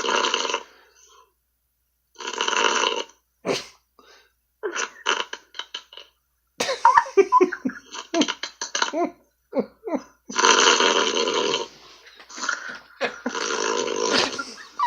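A man snoring heard over a Skype call: four long, noisy snore breaths, with a run of short irregular snorts and gurgles between the second and third.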